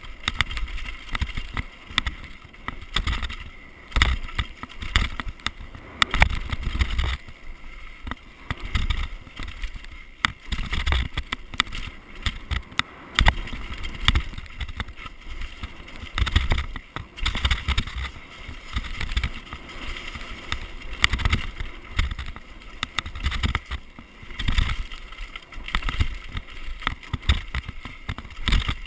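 Downhill mountain bike ridden fast down a dirt and leaf-covered forest trail: tyres on the ground, with frequent rattles and knocks from the bike over bumps. Wind buffets the microphone in gusty low rumbles.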